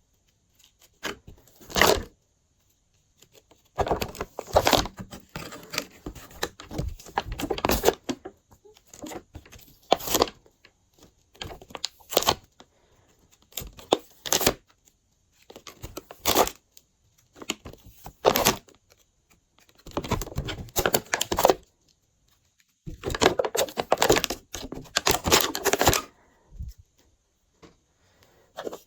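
Glossy slime being squeezed, stretched and folded by hand, making crackling, popping bursts as air pockets break. The bursts come in irregular bouts, some a second or two long and others short, with quiet pauses between them.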